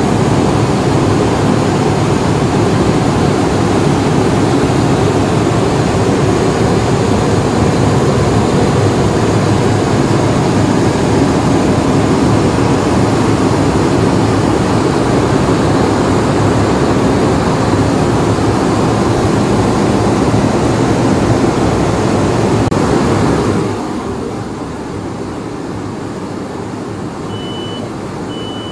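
Steady roar of airliner cabin noise inside an Airbus A319 in flight. About 23 seconds in it drops suddenly to a quieter steady level, and near the end a row of short, evenly spaced high beeps begins.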